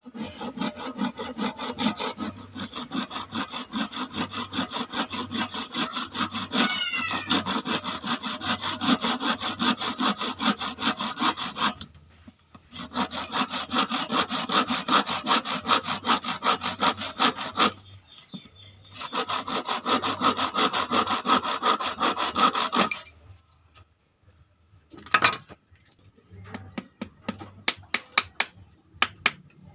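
Handsaw cutting wood in fast, even strokes, in three spells broken by short pauses. Near the end come a single sharp knock and then a run of light clicks and taps.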